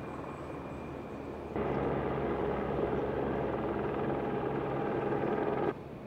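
Rhaetian Railway passenger train running past: a steady rumble with a low hum. It comes in suddenly about one and a half seconds in, over a quieter steady rumble, and cuts off sharply just before the end.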